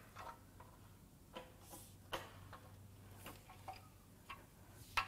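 Faint, scattered clicks and ticks, about seven at uneven spacing, as the crankshaft of a Toyota 2AR-FE 2.5 L four-cylinder with a broken connecting rod is turned backwards by hand with a long-handled wrench on the crank bolt.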